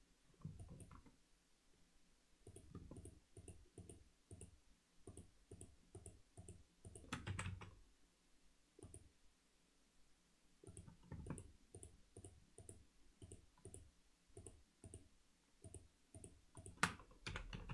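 Faint clicking of a computer keyboard and mouse, a few clicks a second, with a louder cluster of clacks about seven seconds in and again near the end.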